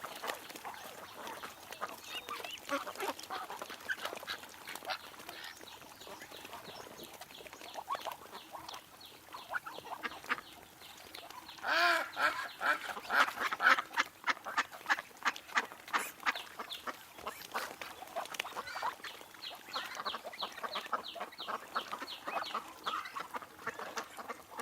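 Ducks quacking in many short, rapid calls, with a louder burst of calling about halfway through.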